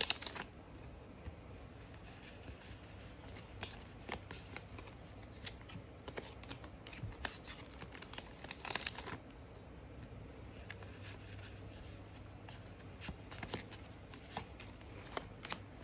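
Yu-Gi-Oh trading cards being handled and laid down onto stacks: scattered soft taps, slides and brief rustles, over a faint steady low hum.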